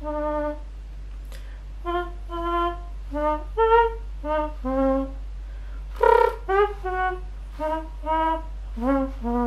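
Mouth imitation of a trumpet: a buzzing, trumpet-like tone played as a tune of short separate notes that step up and down in pitch. One louder, rougher note comes about six seconds in.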